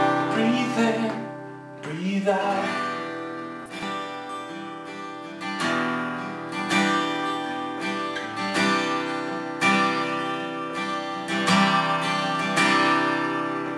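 Acoustic guitar strumming chords with a strong strum every second or two, each chord ringing on between strums.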